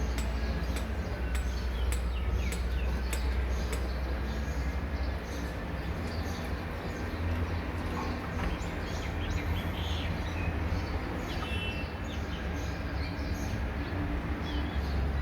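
Birds chirping in short, high chirps and ticks, scattered through a steady low hum.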